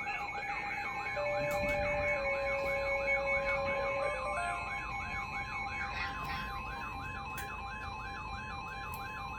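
Emergency alert tones signalling a tornado warning: a fast siren-like warble rising and falling about three times a second, over steady and beeping alarm tones from alert receivers.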